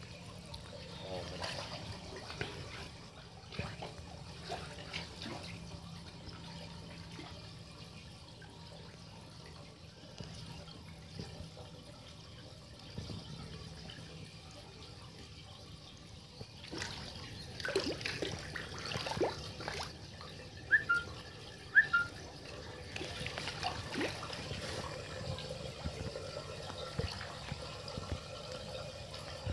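Shallow water sloshing and trickling as a man wades and pushes water across a tank floor with a long-handled squeegee, with a few sharper splashes in the second half.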